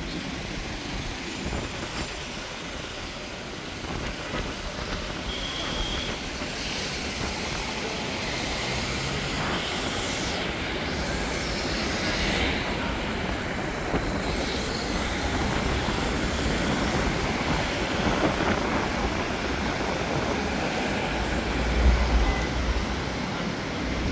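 Steady vehicle noise that slowly grows louder, with a heavier low rumble near the end.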